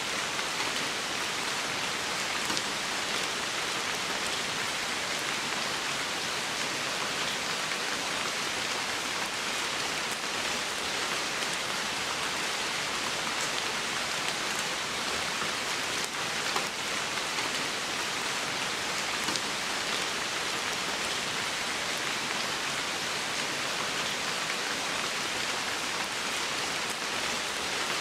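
Steady rain falling on forest leaves and moss, an even hiss with occasional single drops ticking close by.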